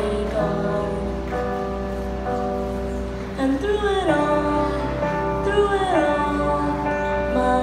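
A girl singing into a microphone over a backing track, her voice gliding between held notes.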